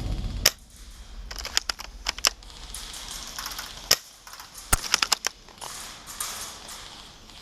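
Airsoft guns firing: scattered sharp cracks of shots and BBs striking hard surfaces, some single and some in quick clusters of two or three.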